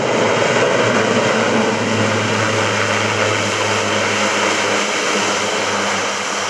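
C-130J-30 Hercules's four turboprop engines and six-bladed Dowty propellers running loud in reverse pitch as the aircraft brakes on its landing rollout, a dense roar with a steady low drone under it. The level eases a little near the end.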